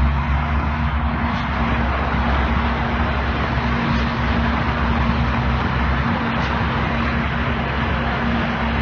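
An engine running steadily: a constant low drone with a broad rushing noise over it.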